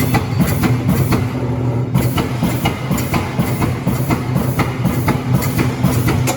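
Amada CNC turret punch running, punching sheet metal with rapid repeated strikes, about three a second, over the steady hum of its drive.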